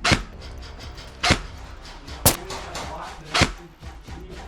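Airsoft rifle firing single shots, four sharp cracks about a second apart.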